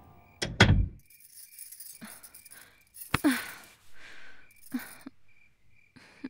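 A wooden door knocks shut with two sharp bangs, then glass bangles jingle and clink in short bursts as someone shifts and sits down on a cot.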